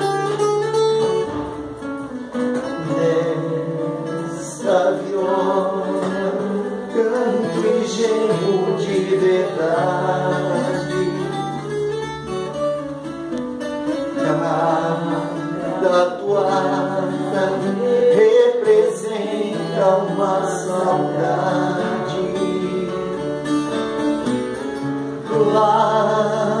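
Acoustic guitar playing a caipira song, with singing.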